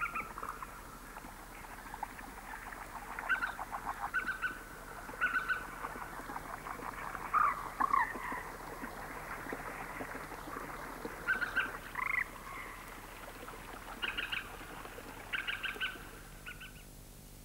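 Frogs croaking in short pulsed trills that recur every second or two, with a few bird chirps among them over a steady background chorus.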